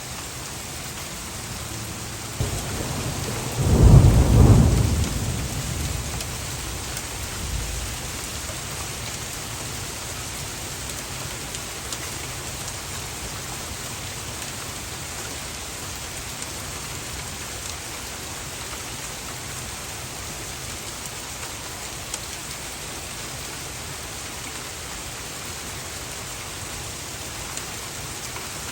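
A clap of thunder about four seconds in, its deep rumble dying away over the next few seconds, over steady rain.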